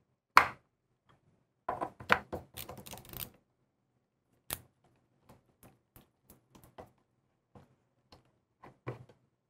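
Small clicks and clatter of a chrome faucet handle being fitted and screwed down onto its cartridge stem with a Phillips screwdriver, followed by a run of faint light ticks. Near the end a handle cap is pressed into place with a click.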